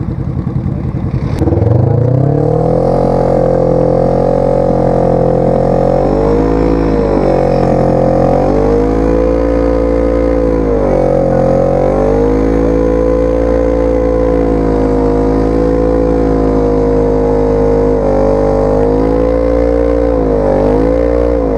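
An off-road vehicle's engine revs up sharply about a second and a half in and is held high, with a few brief dips in revs, while a vehicle stuck in mud is being pulled out.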